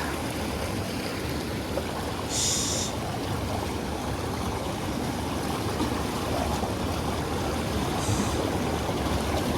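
River water running steadily, with two short high hisses, one a couple of seconds in and one near the end.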